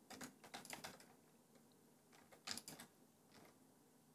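Faint clicking of computer keyboard keys, in a short cluster near the start and another about two and a half seconds in, as shortcuts are used while editing a 3D model.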